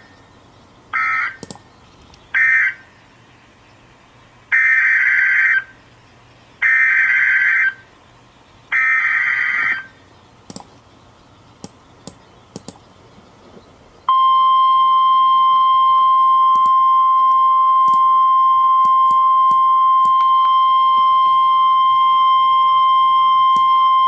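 Emergency Alert System SAME data bursts from a NOAA Weather Radio broadcast: the last of three short end-of-message bursts, then three longer header bursts about two seconds apart announcing the next warning. After a pause of about four seconds, the steady 1050 Hz weather radio alert tone sounds for about ten seconds.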